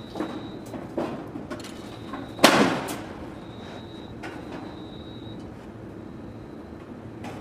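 Several sharp knocks and one loud bang about two and a half seconds in, which rings on briefly, with a faint high steady whine coming and going behind them.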